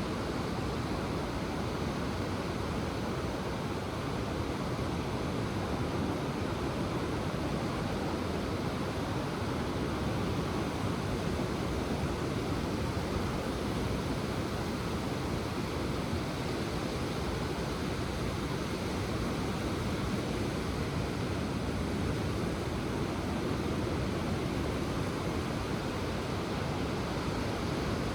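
Ocean surf washing onto the shore in a steady, unbroken hiss.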